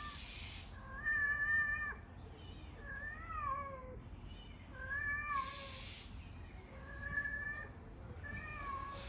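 A cat meowing repeatedly: about six drawn-out meows, each rising and falling in pitch, a second or two apart.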